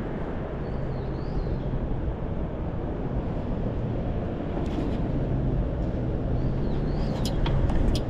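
Steady low outdoor rumble of urban background noise, with a few faint high chirps and several sharp clicks near the end.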